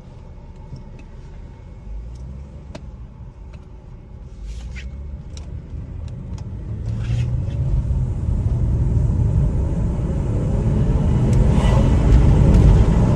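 Car on the move, a low rumble growing steadily louder, with a few light clicks and taps in the first half.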